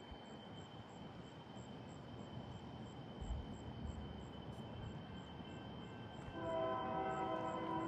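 Low rumble of an approaching Union Pacific freight train, then about six seconds in the locomotive's air horn starts sounding, a steady chord of several notes.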